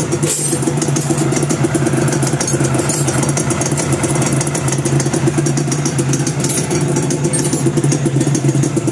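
Honda NSR 250 MC21's two-stroke V-twin idling steadily, with the clatter of its dry clutch, which is normal for a dry clutch and not a sign of engine damage.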